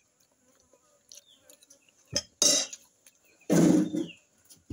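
Cutlery and dishes clattering: a few sharp clinks about two seconds in, then a longer clattering scrape about a second later.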